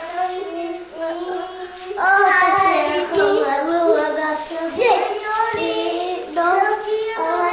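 Young children singing a song in long held notes.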